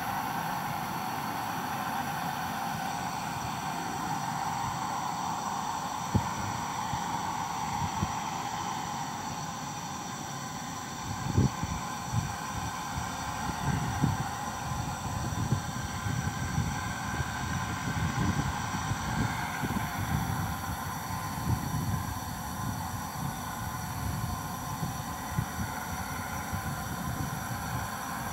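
Pressurised hydrotest water being released from a pipeline as a high spray: a steady rushing hiss. From about a third of the way in, irregular low thumps and gusts come in over it.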